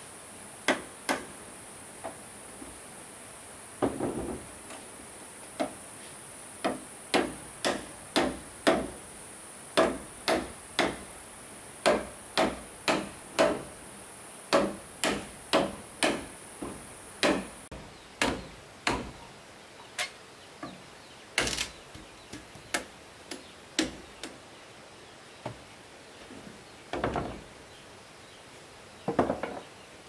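Repeated sharp strikes of a tool on wood, about one or two a second with short pauses, getting sparser in the second half. A steady high-pitched hiss runs underneath and cuts off a little past halfway.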